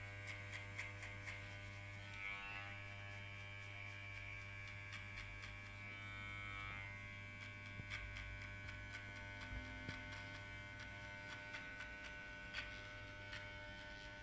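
Electric hair clipper running with a steady hum and faint ticks as it cuts short hair, its blade lever set to 0.5, blending the line of a fade.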